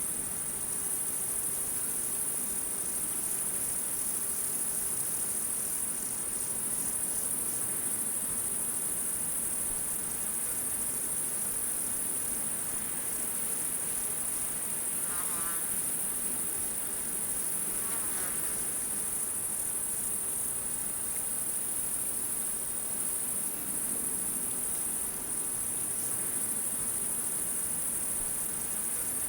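Jungle insect chorus, a steady high-pitched drone throughout, with two short wavering calls about halfway through.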